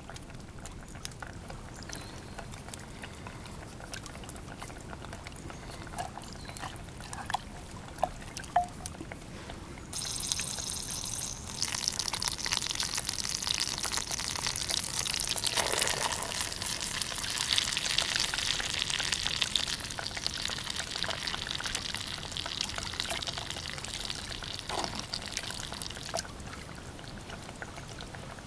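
A few small clicks over a quiet background, then from about ten seconds in a dense crackling sizzle from a hot pan over an open fire, as food goes in to fry. The sizzle is loudest in the middle and slowly eases toward the end.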